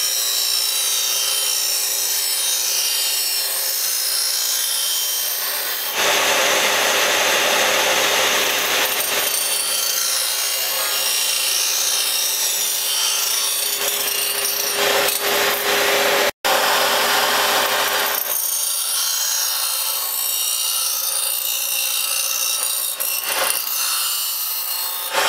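Foley single-blade relief grinder's abrasive wheel grinding the relief on the blades of a Toro 11-blade greens mower reel: a steady hiss of metal on stone over a constant motor hum. It gets louder about six seconds in and again past the middle, and cuts out for an instant just before.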